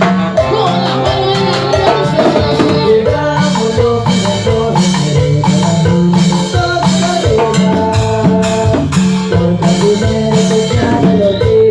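Cumbia band playing: a steady percussion beat under a repeating melody line.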